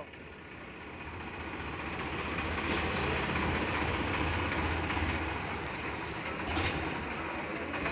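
Tractor diesel engine running with a mouldboard plough mounted on its hitch. It grows louder over the first two or three seconds, then holds steady.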